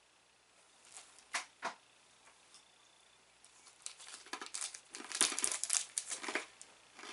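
Plastic snack wrapper crinkling and rustling as it is handled and opened, after a few light clicks; loudest near the end.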